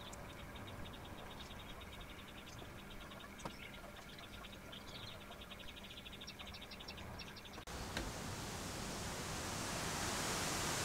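Faint background with a rapid run of high, fine ticks over a low steady hum. About three-quarters of the way through it cuts off suddenly into a steady rushing hiss that grows louder.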